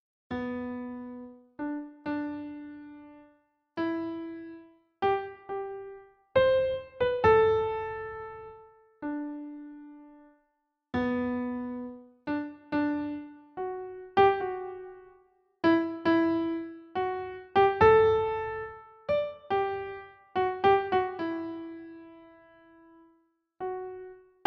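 Slow, soft piano melody: single notes struck one after another, each left to ring and fade, with brief pauses between phrases.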